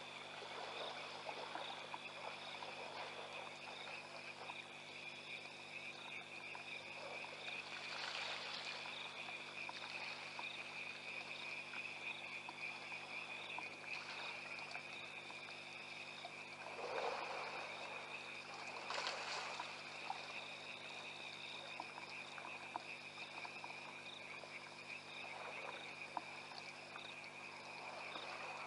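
Night chorus of frogs and insects at a waterhole: a steady high trill with a higher pulsing call repeating over it. A few brief rushes of noise break in about a third of the way through and twice more past the middle.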